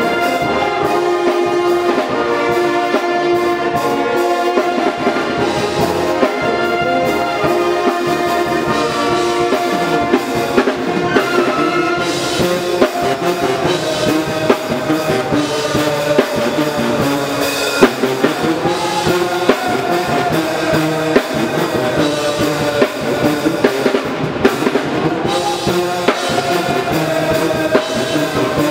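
HBCU-style pep band playing loud brass music in full chords: sousaphones, trumpets, trombones and saxophones, with drums keeping a steady beat.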